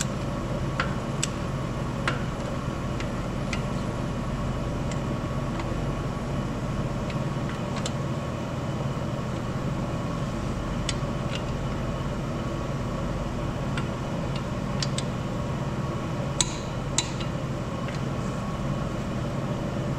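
Torque wrench on the blower mounting bolts of a Detroit Diesel 4-53T: scattered sharp metallic clicks, the two loudest about half a second apart near the end, over a steady low hum.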